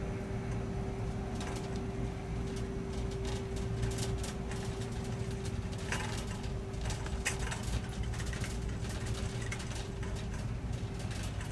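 Rainy outdoor ambience: a steady low rumble of traffic with a held hum, and scattered ticks of falling rain throughout.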